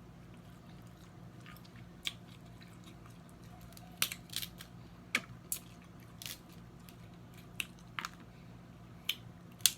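Snow crab leg shells being cracked and snapped open by hand, with about ten sharp, irregular cracks and crunches, the loudest near the end.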